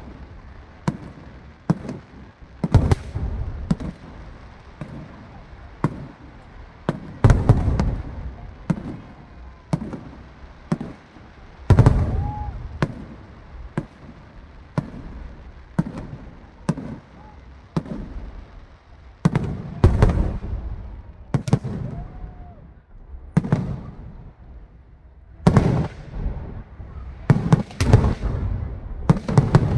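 Aerial fireworks display: a continuous string of shell bursts, sharp cracks and deep booms, with denser clusters of heavy booms every few seconds.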